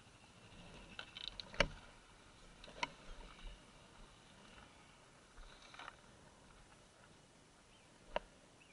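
A few sharp clicks and knocks over a faint background, the loudest about a second and a half in; no engine is heard running.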